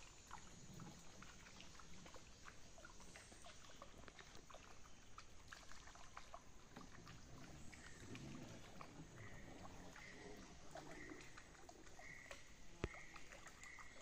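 Near silence: faint ambience of a swamp-forest creek around a wooden canoe, with scattered soft ticks and small water sounds. From about nine seconds in, a short high note repeats steadily, somewhat faster than once a second, and one sharp click or knock stands out near the end.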